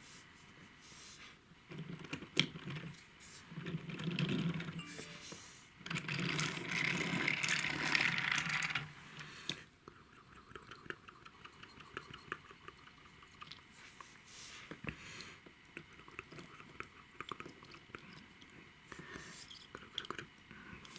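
Close-up clicking, rustling and scraping of small objects being handled. A louder rustling scrape runs from about two to ten seconds in, followed by a run of quick, light ticks.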